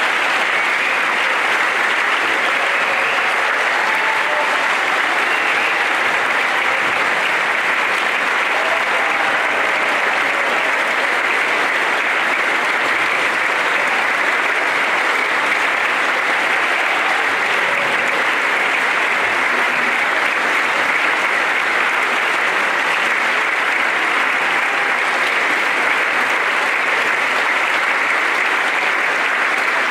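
A large audience applauding, a dense, even clapping that holds at a steady level.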